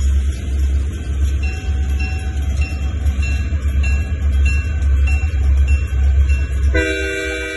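Railroad crossing bell dinging steadily, about three dings every two seconds, over a heavy low rumble. Near the end, the approaching locomotive's horn comes in as a steady chord of several notes.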